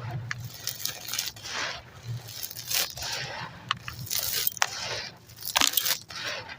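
Baked concrete and ash being crumbled: a run of crunching, scraping bursts with sharp cracks.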